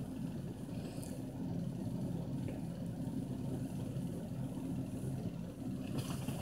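Steady low hum of a car engine and road noise heard from inside the cabin, with a few light clicks near the end.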